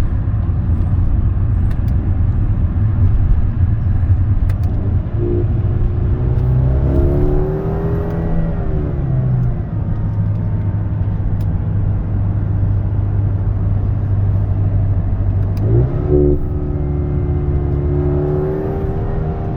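Mercedes-AMG GLA 35's turbocharged four-cylinder engine and road noise at highway speed, heard from inside the cabin with the panoramic roof open: a steady low drone. The engine note climbs twice, about six and sixteen seconds in, and falls back after each.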